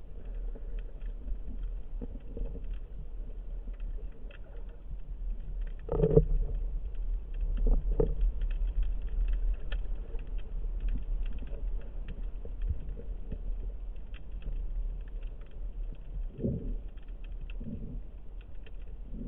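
Underwater sound through a camera's housing: a steady low rumble of the moving sea with constant faint crackling ticks, and a few dull knocks, the strongest about six and eight seconds in and two more near the end.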